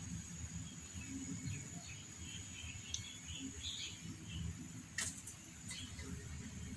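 Faint ambient background of scattered bird chirps over a steady high insect-like whine, with two sharp taps about five seconds in.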